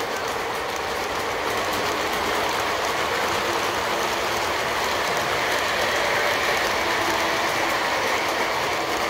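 Model freight train rolling past close by on its track: a steady rolling noise of the cars' wheels on the rails, swelling slightly about six seconds in.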